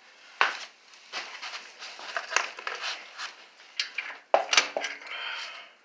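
Irregular metal clinks and knocks from a steel bolt and the square-tube steel frame pieces of a wheelie machine being handled and worked together, with the strongest knocks about half a second in and again around four and a half seconds in.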